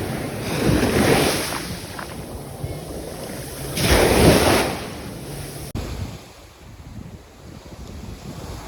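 Waves washing in on a shore: a rushing surge about a second in and a louder one about four seconds in. A cut about six seconds in leaves a quieter, steady rush.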